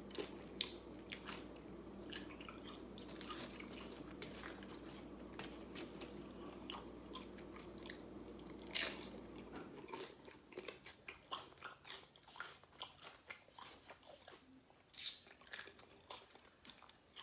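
Tortilla chips being bitten and chewed close to the microphone: irregular dry crunches.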